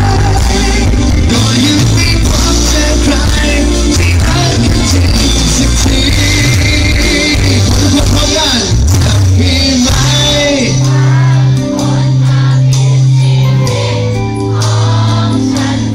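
A live band with electric guitars, keyboards and a male lead singer playing a pop-rock song, loud through the stage sound system. The singing and a sustained bass line run throughout.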